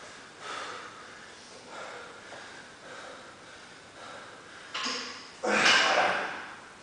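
A man breathing hard through a set of barbell clean and jerks: several short breaths, then a loud, forceful exhale with a grunt as he drives the barbell up, about five and a half seconds in.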